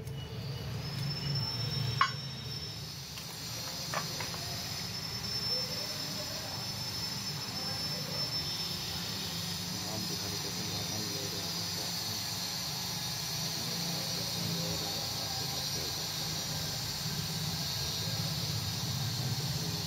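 Metal parts handled on a steel plate: a sharp metallic click about two seconds in and a lighter one about two seconds later, over a steady low hum and a faint steady high whine.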